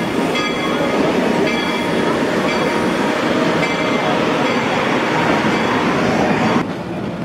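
Narrow-gauge passenger train rolling along the track, heard from aboard a coach: a steady rumble with a short ringing click about once a second from the wheels. About six and a half seconds in, the sound drops suddenly to a quieter level.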